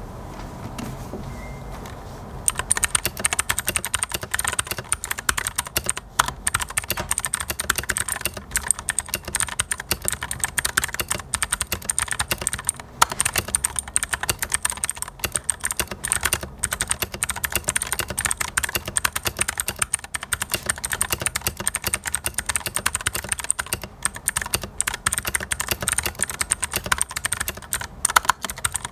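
Continuous fast typing on a 68% mechanical keyboard (Popboard68) with clicky blue switches, each keystroke a sharp click. The typing starts about two seconds in.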